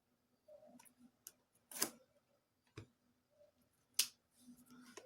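A small retail box wrapped in plastic film being handled and unwrapped: scattered light crinkles and clicks, with three sharper clicks about two, three and four seconds in.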